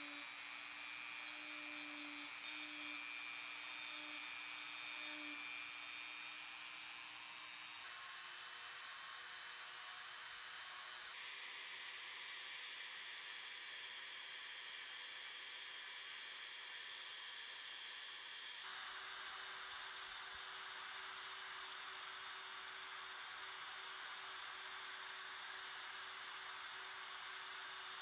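Dremel 3000 rotary tool spinning at high speed with a small bit, drilling toe holes into a tupelo-wood bird carving. Its steady high whine jumps to a new pitch a few times.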